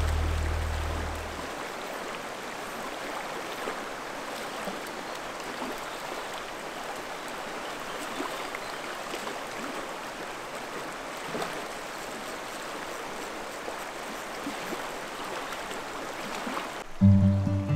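Fast mountain river rushing over rocks, a steady rush of water, with a few small splashes as a hooked trout is played and netted. Background music fades out over the first second or so, and acoustic guitar music comes in near the end.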